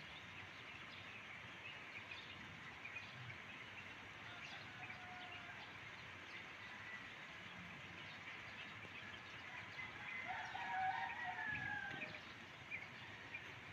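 A rooster crows about ten seconds in, over a steady outdoor background with small birds chirping.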